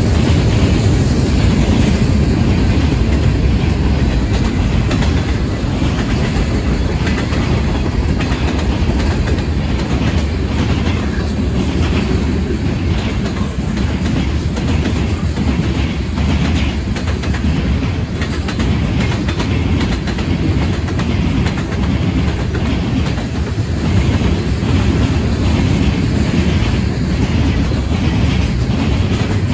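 Cars of a long mixed freight train rolling past: a steady rumble of steel wheels on rail, with repeated clicking as the wheel sets cross the rail joints.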